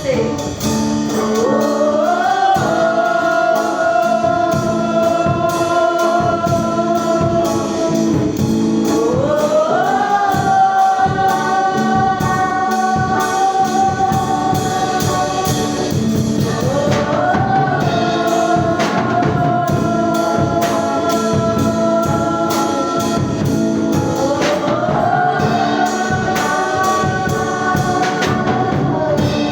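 Gospel worship music: voices singing long held notes, gliding up into each of four phrases about seven seconds apart, over a band with drum kit.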